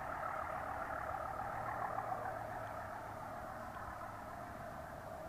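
A steady, metallic-sounding droning noise from the sky, of unknown origin, easing off slightly in level about halfway through.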